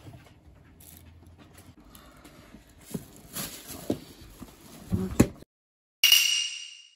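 Vinyl seat cover being pulled and crinkled over a hard plastic motorcycle seat base, with a few knocks, the loudest about five seconds in. The sound then cuts out and a short, bright ringing sound effect plays and fades.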